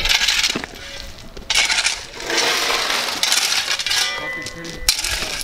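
A metal hand tool scraping and scooping through loose gravel and sawdust, in about four rough strokes with a light metallic clink.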